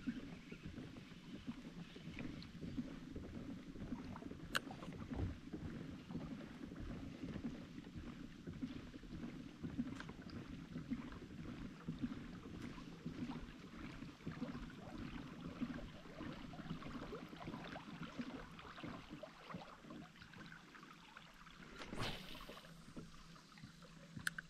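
Pedal-drive kayak under way: a steady low churn of the pedal drive and water along the hull, with a few sharp ticks. The churn eases off near the end, and a brief swish follows about two seconds before the end.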